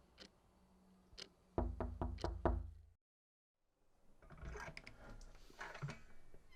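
A series of knocks: two single knocks, then a quick run of several knocks with a hollow low ring, cut off abruptly, followed by quieter indistinct room noise.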